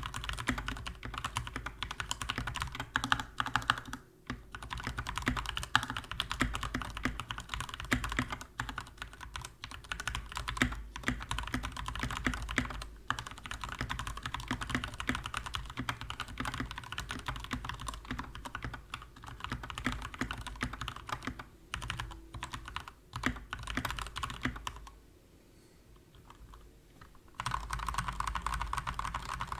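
Fast continuous typing on a Skyloong GK61x 60% mechanical keyboard with lubed Gateron Yellow linear switches and G.Skill Crystal Crown keycaps: a dense run of key clacks and bottom-outs. It pauses for about two seconds near the end, then resumes.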